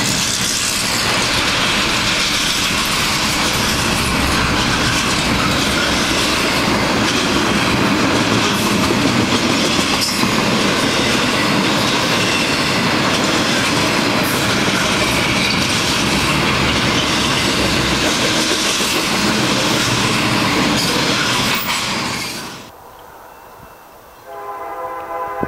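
Double-stack intermodal container train passing close by, a steady loud rumble and clatter of well cars and wheels over rail joints. It cuts off about 22 seconds in, and near the end a multi-note locomotive horn starts sounding from a train not yet in sight.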